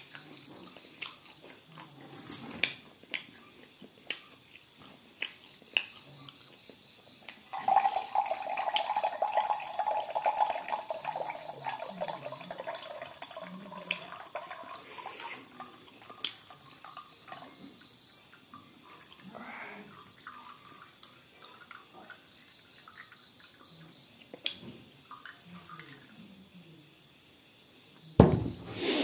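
Whisky poured from a glass bottle into a cup: a steady stream of liquid starting about seven and a half seconds in and lasting about seven seconds. Small scattered clicks of handling, and a short loud bump near the end.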